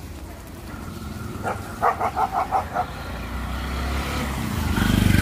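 A three-wheeled auto-rickshaw drives past close, its engine growing to its loudest near the end. About a second and a half in comes a rapid string of about six short horn beeps.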